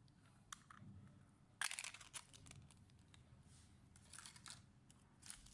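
Faint handling noises: short crinkling and scraping sounds, the loudest about a second and a half in, with a few more around four seconds in.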